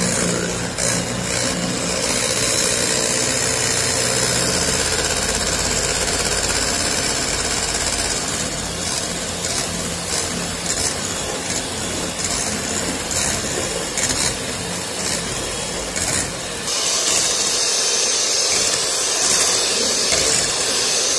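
Electric hand mixer running steadily, its beaters whisking egg whites and sugar into a foam in a stainless steel bowl, with occasional short clicks.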